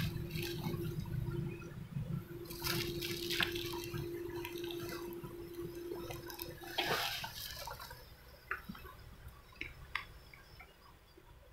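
Water splashing and sloshing in a few short bursts, with a steady low hum underneath that stops about seven seconds in; a few faint clicks follow.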